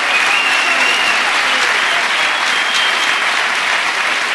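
Audience applauding steadily, with a couple of high whistles rising above the clapping.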